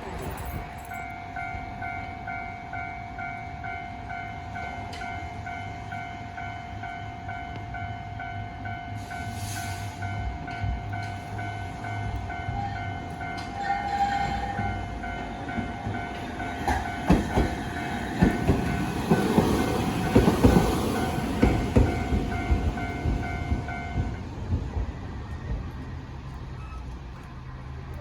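Japanese level-crossing alarm ringing its repeating electronic 'kan-kan' bell as a Hankai Tramway streetcar passes over the crossing. The streetcar's wheels clack loudly over the rail joints for several seconds near the end, and the bell cuts off a few seconds later.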